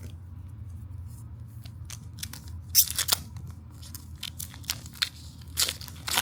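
Handling of a foil trading-card booster pack and its cards: a series of short crisp crinkling and snipping sounds, loudest about three seconds in and again near the end, over a steady low hum.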